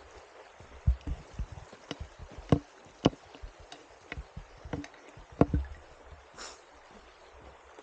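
Irregular footsteps and sharp clicking knocks of trekking-pole tips striking rock on a rocky mountain trail, about one or two strikes a second, with a few louder ones.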